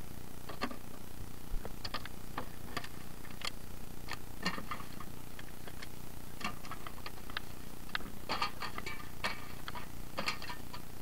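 Irregular light clicks and small knocks of hard objects, a few a second in clusters, over a steady low background noise.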